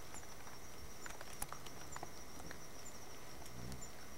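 Night-time insect chorus: a steady high-pitched trill with a short higher chirp about once a second, and a few faint clicks.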